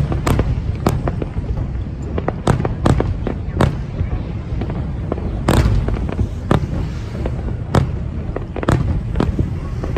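Aerial fireworks bursting: an irregular run of about a dozen sharp bangs, some close together, over a constant low rumble.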